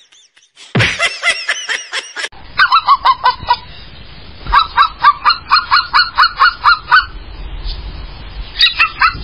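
A brief burst of rapid high calls, then three runs of fast goose-like honking calls, about five a second, each dipping slightly in pitch.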